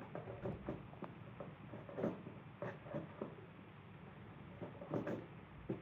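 Irregular light knocks, clicks and rustles of plastic parts being handled, as the washboard is fitted back onto the robot vacuum's base station, with a short lull in the middle and a few firmer knocks near the end.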